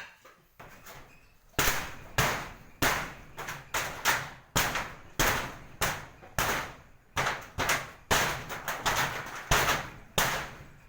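Hammer striking repeatedly and steadily, about one to two blows a second, starting about a second and a half in: hammering during roof repair work.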